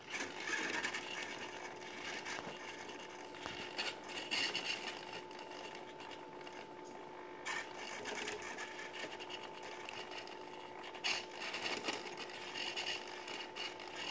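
Two hobby servos tilting a ball-balancing plate, whirring and buzzing in repeated short bursts over a steady hum, with the ball rolling on the plate.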